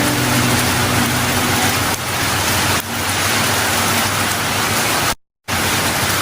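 Heavy rain pattering on an umbrella and the ground, a loud, even hiss. A low hum fades out in the first two seconds, and the sound cuts out completely for a moment about five seconds in.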